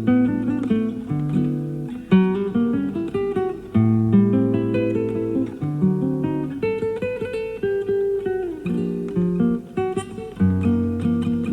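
Classical guitar played live: a flowing run of plucked melody notes over sustained bass notes. It is an off-air FM recording on cassette tape.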